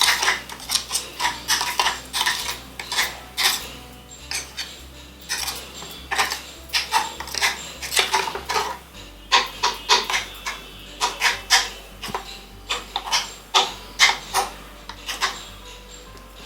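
A spoon stirring blended soup in a blender jar, clinking and scraping against the jar in irregular taps that die away near the end.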